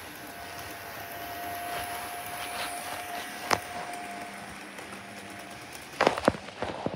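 HO scale model diesel locomotive running along the track, its small electric motor giving a steady whine over the rumble of wheels on rail; the whine drops away about four seconds in. A few sharp clicks come near the end.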